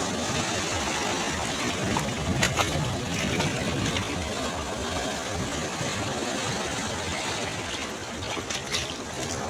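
Sea waves washing on the shore: a steady rushing noise with a low rumble, and a few brief crackles about two and a half seconds in and near the end.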